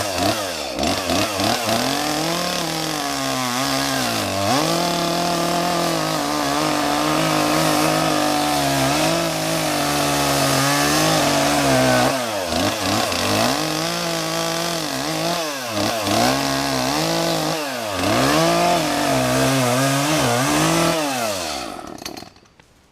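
Gas chainsaw cutting into a tree. Its engine note dips and recovers again and again as the saw bogs in the cut, then the engine dies about a second before the end: the saw has run out of fuel.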